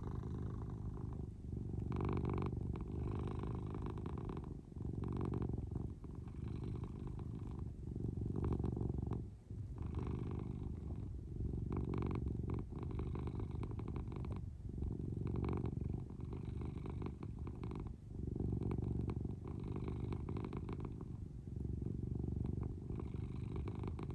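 Domestic cat purring close to the microphone: a steady low purr that breaks off briefly every few seconds.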